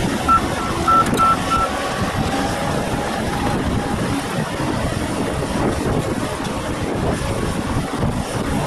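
Diesel engines of a Volvo tracked excavator and a crawler dozer running steadily at work. A backup alarm beeps five times in quick succession in the first two seconds, about three beeps a second.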